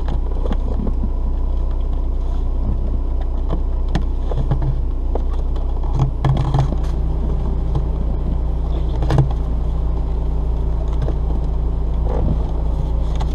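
Steady low rumble with scattered short clicks and light knocks, a few seconds apart, as of a cable and car interior trim being handled.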